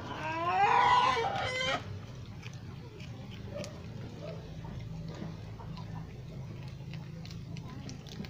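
A rooster crowing once: a single pitched call of under two seconds that rises and then holds, the loudest sound here. After it there is only a steady low background with faint scattered ticks.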